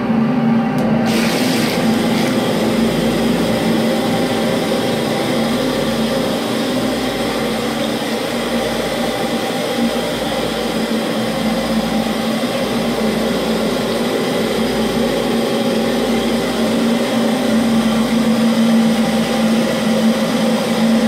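Steady hum of electric machinery running, with a constant pitched drone and a hiss that fills out higher about a second in.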